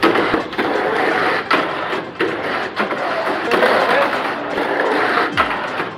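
Tamiya Mini 4WD car running laps on a plastic track: its small electric motor and gears buzzing as the car rattles along the track, with scattered sharp clicks.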